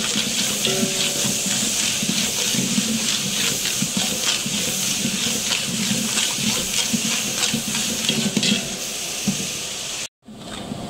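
Sliced onions frying in hot oil in a large aluminium pot, sizzling steadily, while a metal ladle stirs them and scrapes against the pot in frequent short strokes. The sound cuts out briefly near the end.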